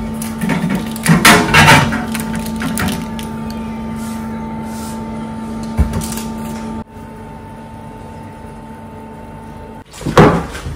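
A Panasonic countertop oven humming steadily with its door open while a hot baking pan is lifted out, with clattering knocks of metal and glass about a second in. A single knock comes near the middle, and a louder rattling clunk of the appliance being handled comes near the end.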